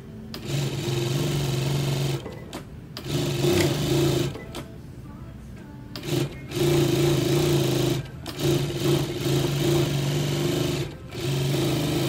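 Megasew MJ62D industrial flat seaming sewing machine stitching a seam in fabric, running in several bursts of a second or two and stopping briefly between them.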